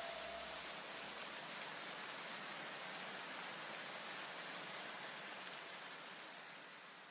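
Steady rain-like hiss from the soundtrack just after the music stops, with a faint low hum dying away in the first second. The hiss fades slowly out near the end.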